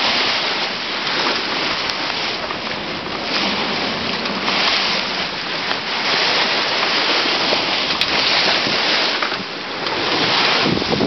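Steady rushing of wind and sea heard aboard a sailing boat under way: wind on the microphone mixed with water rushing past the hull, rising and falling a little.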